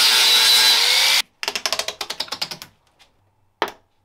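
Angle grinder cutting through the sheet-steel body of a car door, a loud steady grinding with a ringing whine, which cuts off about a second in. A rapid rattle of about ten strokes a second follows for just over a second, and a single sharp knock comes near the end.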